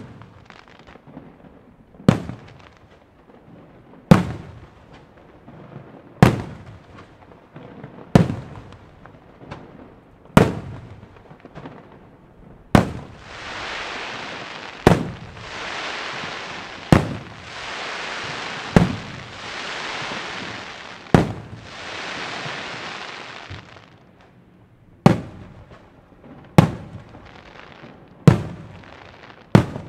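Aerial firework shells bursting overhead, one sharp bang about every two seconds, each dying away quickly. For about ten seconds in the middle a steady hiss fills the gaps between the bangs.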